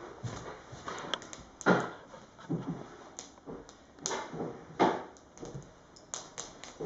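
Firewood burning in an open hearth, crackling and popping with irregular sharp snaps; the two loudest pops come about two and five seconds in.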